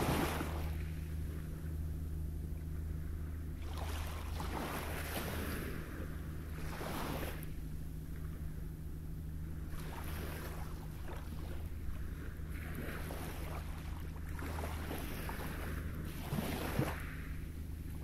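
Small waves breaking and washing up over a pebble beach, one every few seconds, over a steady low rumble.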